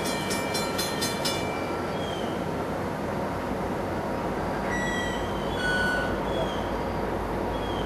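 Commuter train running on the rails with a steady rumble, a quick regular clicking of wheels over rail joints dying away about a second and a half in, and a deeper rumble building near the end.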